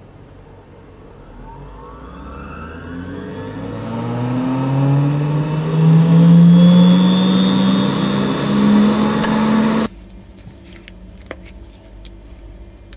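Benchtop microcentrifuge spinning up to speed: a whine that climbs steadily in pitch and grows louder, then cuts off suddenly about ten seconds in. A few faint clicks follow over a low background hum.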